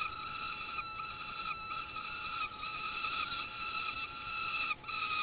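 Peregrine falcon nestlings begging for food at the nest as they are fed: a string of drawn-out, even calls, each under a second long, following one another with only short breaks.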